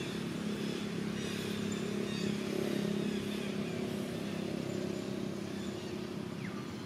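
A steady engine hum from a passing motor vehicle, growing louder to about halfway through and then easing off.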